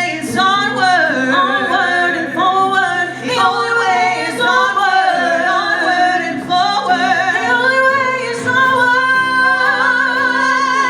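Singing with musical accompaniment: a sustained, wavering vocal line over held chords.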